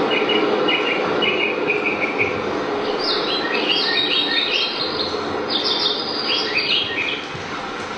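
Recorded birdsong over a steady hiss like rain, the nature-sound opening of a dance's music track. A run of short repeated chirps comes first, then from about three seconds in a busier song of quick falling notes that fades near the end.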